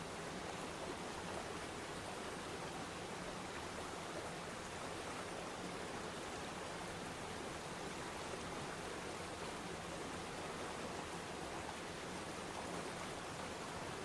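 Waterfall and shallow river rapids rushing over rocks: a steady, unbroken rush of water.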